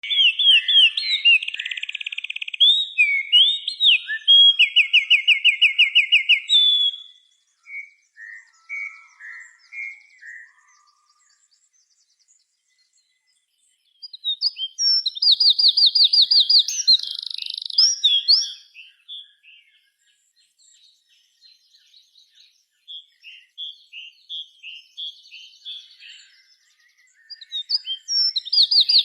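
Small songbirds singing: loud phrases of rapid trills repeated in bursts, with softer scattered chirps between them and a brief near-silent lull about halfway through.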